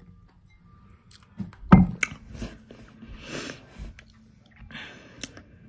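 A person drinking from a wine glass and swallowing, with breathy mouth sounds. A sharp low thump about two seconds in is the loudest sound, and there is a short click near the end.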